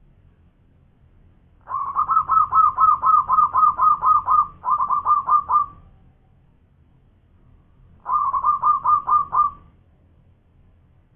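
Zebra dove (perkutut) singing loudly: a fast string of staccato cooing notes, about four a second, lasting about four seconds with a brief catch partway through, then a second, shorter phrase about eight seconds in.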